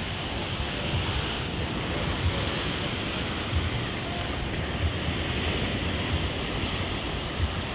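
Sea surf breaking and washing over rocks, a steady rushing wash, with short low thumps of wind buffeting the microphone.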